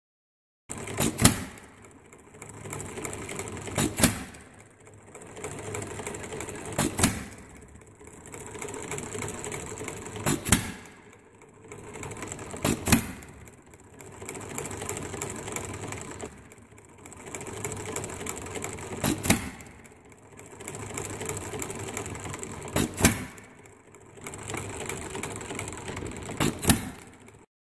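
Scale model Briggs double side shaft gas engine running on propane, firing a sharp bang (sometimes two close together) only every three to four seconds and coasting on its flywheels in between, the hit-and-miss way, with a steady clatter from its side shaft and valve gear between firings.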